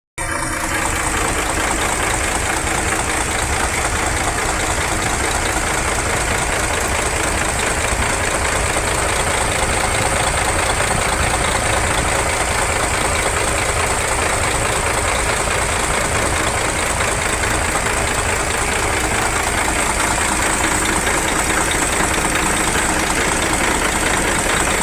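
MAN diesel engine running steadily at idle, an even fast firing pulse with no change in speed.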